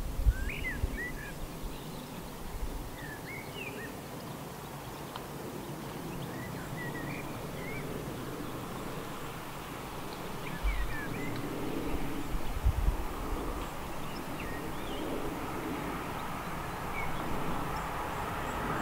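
Birds chirping now and then over a low outdoor rumble, with a couple of low thumps. In the last few seconds the distant engine sound of a pair of approaching Class 37 diesel locomotives, with English Electric V12 engines, begins to build.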